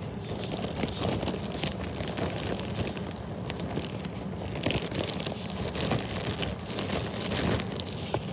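Rustling and crinkling handling noise close to the microphone, full of small irregular clicks and scrapes.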